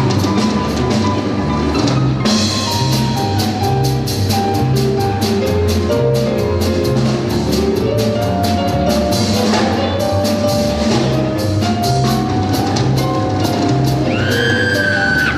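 Upbeat accompaniment music with a steady drum beat and a bouncing bass line. Near the end a high, held whistle-like tone slides upward over it.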